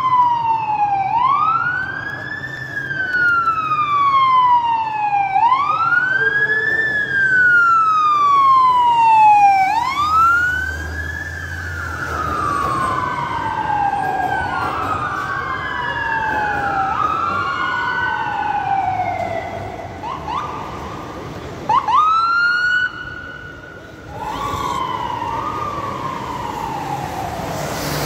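Sirens of a fire truck and a paramedic ambulance in wail mode, each cycle rising quickly and falling slowly about every three seconds. In the middle two sirens overlap out of step, then come a few quick rising whoops and a brief loud burst about two-thirds of the way in, followed by one more slow falling wail.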